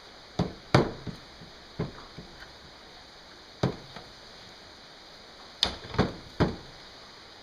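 Seven sharp knocks at uneven spacing, including a quick run of three near the end: parts or tools striking during work on a ball joint in an aluminium control arm.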